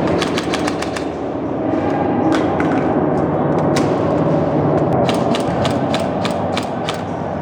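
Airsoft guns firing in several short, rapid bursts of sharp clicks, with a longer burst about two-thirds of the way through, over a steady low noise.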